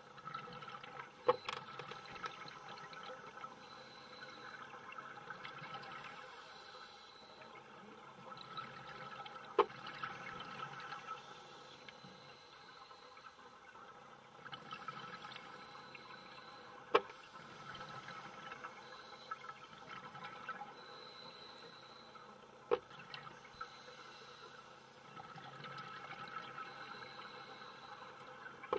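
Underwater scuba breathing: a diver's regulator and exhaled bubbles swelling and fading in waves every few seconds, with four sharp single clicks spread through it.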